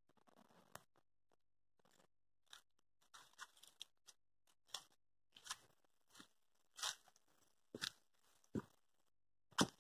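A series of short, dry crunches, spaced irregularly about once a second and growing louder toward the end.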